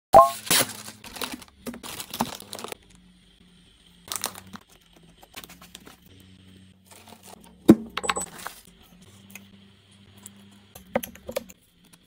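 Short crisp crunches, clicks and crinkling from food being handled: a bite of crusty toast, then a plastic bag of shredded mozzarella being shaken out over bread. The loudest single knock comes a little past halfway.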